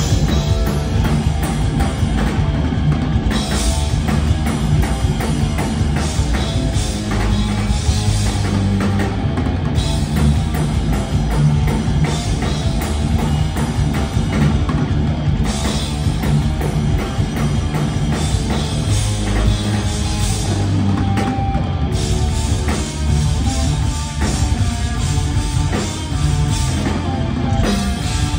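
Heavy metal band playing live and loud: distorted electric guitars, bass guitar and drum kit.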